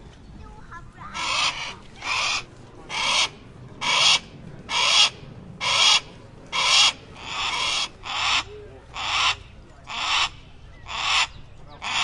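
A hawk giving a harsh, screeching call over and over, about once a second, each call about half a second long, starting about a second in.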